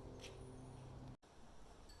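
A faint, thin tinkle of Japanese shrine wind chimes (fūrin) over a low steady hum that cuts off abruptly a little over a second in.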